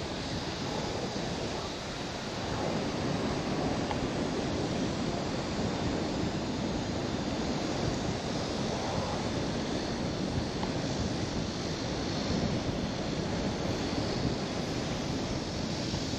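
Steady rush of airflow buffeting the microphone in paraglider flight, growing a little louder about two seconds in.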